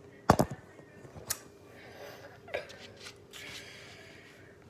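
Handling noise as a cooked tortilla is folded into a wrap: a loud knock about a third of a second in, two smaller knocks later, and soft rustling between them.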